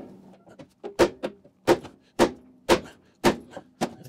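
Six sharp hammer blows on a metal tool, about half a second apart, with lighter knocks between them, struck at the door hinge to try to free a stuck screw.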